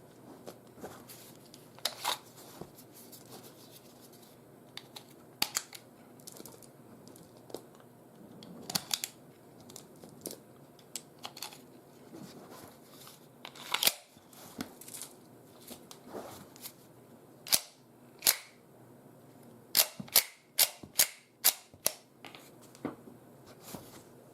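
Sharp metallic clicks and snaps from handling an Umarex Glock 17 Gen 5 9 mm P.A.K. blank-firing pistol, spaced irregularly. The loudest come in the second half, including a quick run of six or seven clicks near the end.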